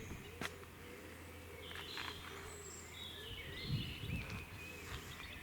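Woodland birds singing, with warbling, wavering phrases overlapping throughout. A few sharp clicks, and a couple of soft low thumps about four seconds in.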